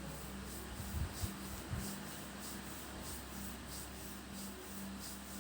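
Hands rubbing rhythmically over skin in a massage, a soft swishing at about two to three strokes a second. A steady low hum runs underneath, with a few soft knocks about a second in.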